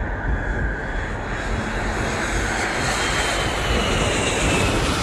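Jet airliner's engines running at takeoff power as it passes close by, the noise growing steadily louder, with a whine that falls slowly in pitch in the second half.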